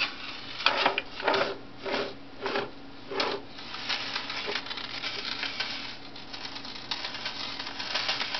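Metal pocket watch and chain clinking as it is played with: a sharp clink about every two-thirds of a second at first, then from about three and a half seconds in a fast, continuous rattle of small metallic clicks.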